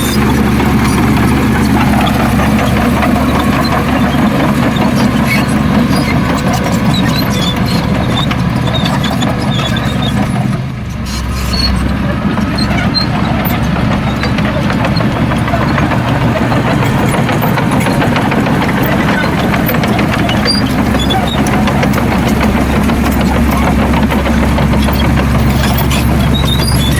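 Heavy diesel engine of earthmoving machinery running steadily, with a short drop in level about eleven seconds in.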